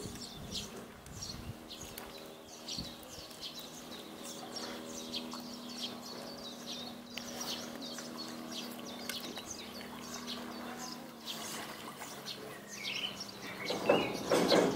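Small birds chirping again and again, short high calls, with a steady low hum in the background for most of the time and a louder sound just before the end.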